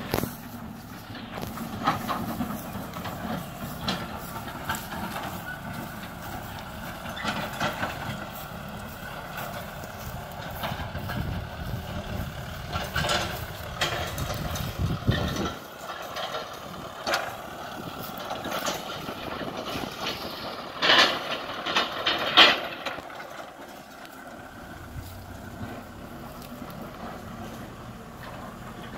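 Farm tractor's diesel engine running while it pulls a trailer, its deep rumble thinning out about halfway through. Several sharp knocks stand out, the loudest two close together in the second half.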